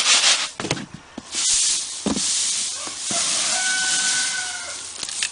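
Threshed wheat grain hissing and rustling in a hand-shaken sieve, in two longer swirling stretches with a few knocks between them; the shaking brings chaff and debris to the top.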